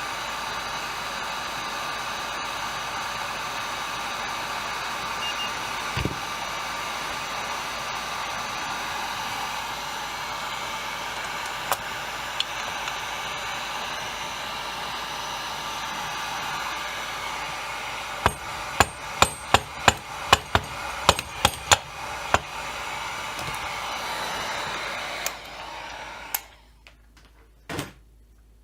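Heat gun blowing steadily, shut off a couple of seconds before the end. About two-thirds of the way in, a quick run of about a dozen light hammer taps on the chainsaw crankcase.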